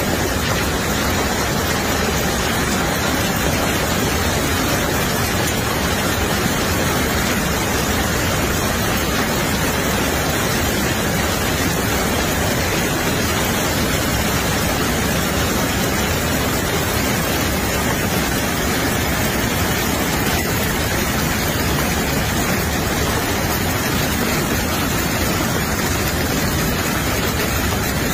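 Loud, steady noise of a severe hailstorm: strong wind driving hail and heavy rain.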